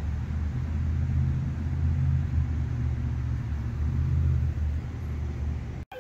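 Steady low rumble of road and engine noise inside a moving car. It cuts off suddenly near the end.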